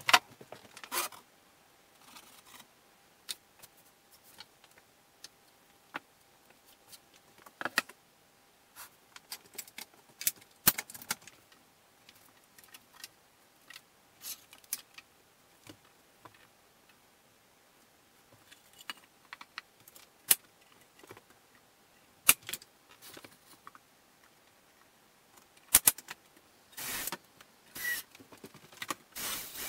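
Scattered clicks, taps and knocks as plywood cabinet panels are handled and bar clamps are set and tightened against them. Near the end a cordless drill-driver runs in a few short bursts.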